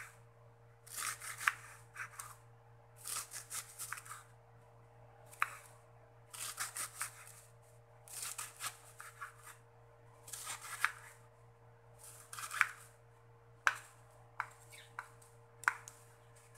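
Chef's knife slicing through a raw cabbage head on a wooden chopping board: groups of crisp, crunching cuts every second or two, with sharp taps as the blade meets the board, mostly in the second half. A faint steady hum lies underneath.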